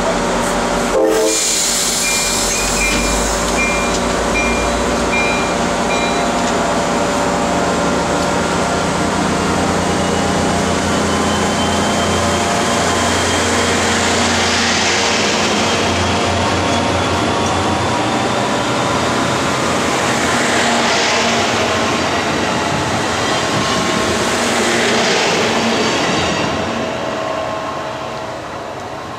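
Shore Line East diesel commuter train pulling out of the station and gathering speed past close by: a steady engine hum, a thin whine that slowly rises in pitch, and wheels rumbling on the rails. A short run of beeps comes about two seconds in, and the sound fades near the end as the last car goes by.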